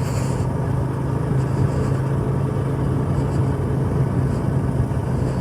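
A vehicle engine running steadily at an even speed, with a constant low hum over road noise.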